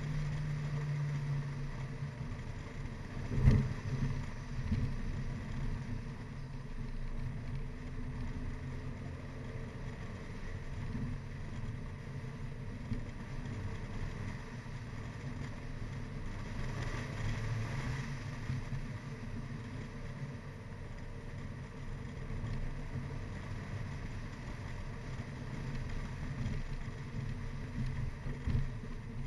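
Mini Cooper Clubman (R55) driving up a winding road: a steady low engine drone with road and wind noise. A sharp thump about three and a half seconds in, and a smaller one near the end.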